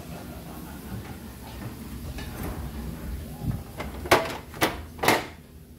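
Faint sizzle of onions frying in a pan, then a refrigerator door shelf being rummaged: three sharp knocks and rattles about half a second apart near the end as a wrapped block of butter is pulled out.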